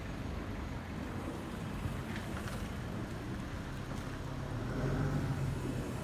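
Distant jet-engine rumble of an Airbus A320-216 with CFM56-5B turbofans passing high overhead, a steady low rumble that swells a little about five seconds in.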